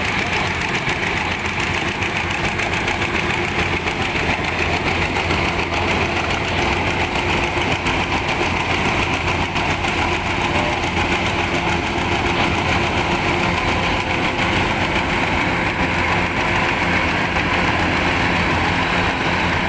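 Rice harvesting machine's engine running steadily under a constant drone, with no change in speed.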